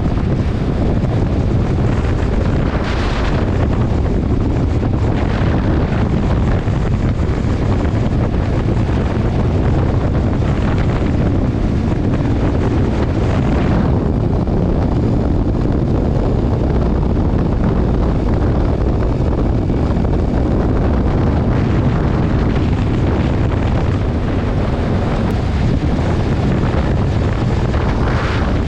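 Heavy wind noise on a GoPro action camera's microphone on a motorcycle riding at highway speed, with the drone of the bike and road underneath. A few brief swells rise out of the steady rush.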